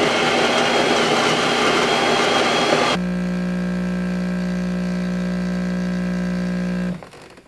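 Jura E8 super-automatic espresso machine making two coffees: its grinder runs for about three seconds, then it switches abruptly to the brewing pump's steady hum, which cuts off shortly before the end.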